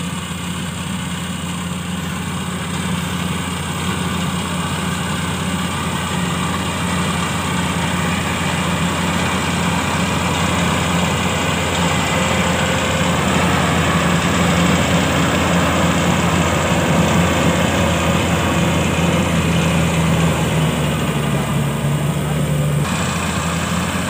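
Tracked mini rice combine harvester running steadily as it cuts and threshes paddy, a steady engine hum with machine clatter. It gets louder as the machine comes close and is loudest about halfway through.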